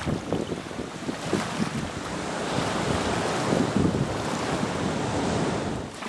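Ocean surf washing onto a beach, with wind buffeting the microphone. The wash swells in the middle and drops away near the end.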